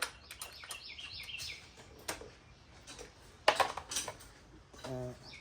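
Sharp metallic clicks and knocks of a hand tool working the chain-adjuster bolt on the electric dirt bike's swingarm, loudest a little past halfway. A bird chirps in quick repeated notes during the first couple of seconds.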